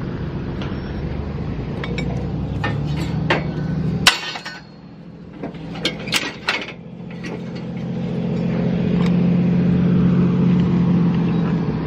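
A motor runs with a steady low hum and cuts off abruptly with a sharp click about four seconds in. A few metallic clinks follow, then a motor hum builds up again and holds steady to the end.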